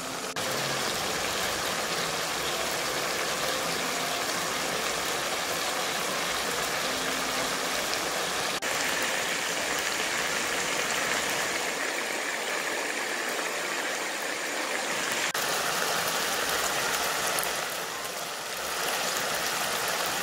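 Cuttlefish rings simmering in oyster sauce in a pan, the sauce bubbling and spattering steadily.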